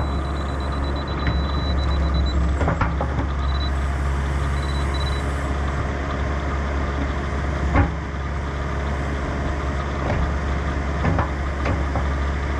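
Mini excavator's diesel engine running steadily as its bucket scrapes and smooths soil, with a few scrapes and knocks. A laser level receiver sounds one steady high tone, meaning the ground is exactly at grade, then breaks into short beeps a couple of seconds in.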